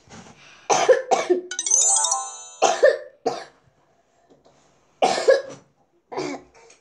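A young girl coughing in several short fits. A short musical jingle plays about two seconds in.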